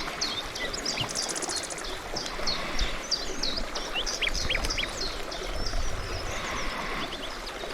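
Songbirds chirping and singing: many short, quickly falling chirps, with a fast high trill about a second in, over a steady rushing background.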